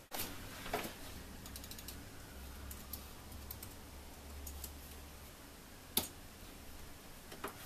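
Typing on an Apple keyboard: scattered light key clicks, some in quick little runs, with a sharper click about six seconds in, over a low rumble.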